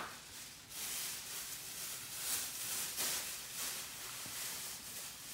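Welsh corgi chewing a chunk of raw tuna: wet smacking and chomping in short strokes, about two a second, after a sharp click at the very start.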